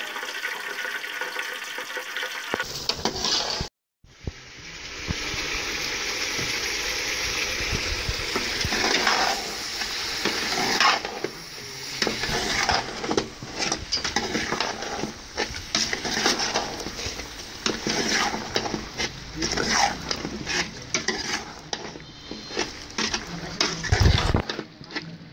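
Mutton liver pieces and tomatoes sizzling in a metal pot while a metal spoon stirs them, scraping and knocking against the pot many times.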